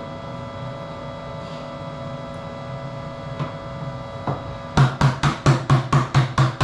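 A plastic bucket knocked rapidly against the rim of a stainless-steel calf milk taxi tank, about a dozen sharp knocks at roughly five a second starting about two thirds of the way in, shaking the last milk powder out of the bucket. Under it a steady hum.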